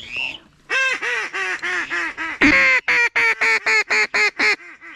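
Mallard duck call blown by a hunter: a fast run of about fourteen loud quacks, the pitch stepping down over the first few, with one longer, louder quack in the middle.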